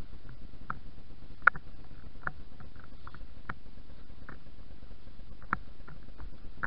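A ridden horse moving at a slow pace: light, irregular clicks about once a second from its tack and footfalls, over a low steady rumble. One sharper click about a second and a half in.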